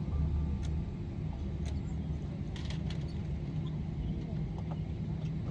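Steady low cabin drone inside a Boeing 777-300ER airliner, with a few faint clicks over it.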